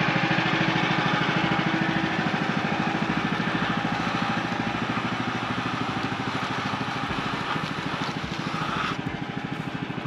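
Woodland Mills HM130 Max sawmill's gas engine running steadily, its band blade turning. About nine seconds in, the higher hiss drops away and the sound eases slightly.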